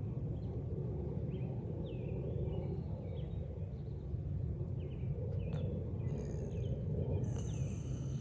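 Bobcat growling low and steadily with a raw chicken drumstick held in its mouth, a possessive growl over food. Small birds chirp faintly now and then.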